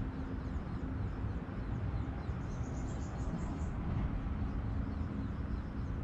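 Wind rumbling on the microphone by a river, with a faint steady low hum underneath. A small bird sings a quick run of high notes from about two and a half seconds in, for about a second.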